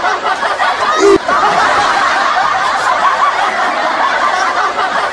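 Continuous snickering, chuckling laughter. A short, loud hit comes about a second in.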